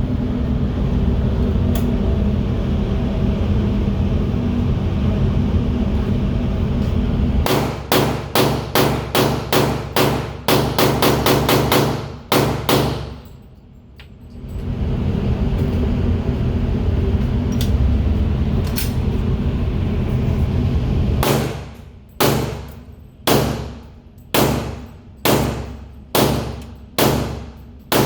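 Glock 22 pistol in .40 S&W firing two strings of shots over a steady low rumble. The first is a rapid string of about a dozen shots. After a pause comes a slower, evenly paced string of about ten, roughly one shot every three-quarters of a second.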